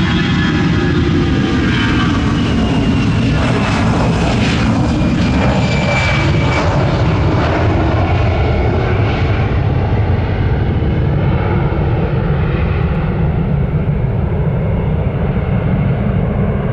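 Airbus A320 jet airliner at take-off power, lifting off and climbing away: a loud, steady engine rumble with whining tones that slide down in pitch, the higher sound fading over the second half as it climbs away.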